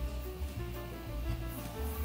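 Background music: a melody of short notes over a pulsing bass line.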